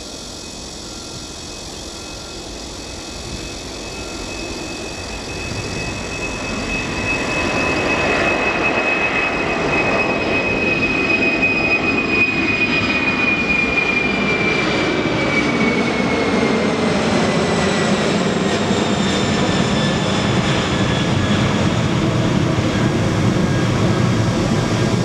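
Jet engines of a China Airlines Boeing 747-400 airliner, growing louder over the first several seconds and then holding a loud, steady rush. About halfway through, a high engine whine slowly drops in pitch as the aircraft passes.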